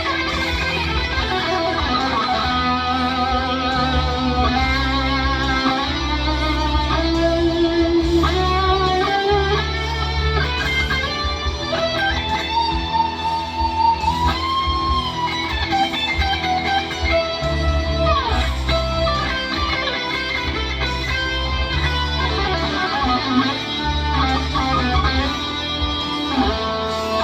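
Electric guitar improvising a rock lead in E minor through an FM9 amp modeler: held single notes with wide vibrato and slow bends, including a long bend upward about twelve seconds in. Underneath runs a steady low part, a bass line that changes note every second or two.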